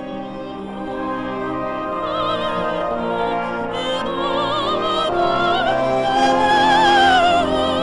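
A woman sings a slow theatre song with wide vibrato over an orchestral backing, climbing to a long, loud high note near the end.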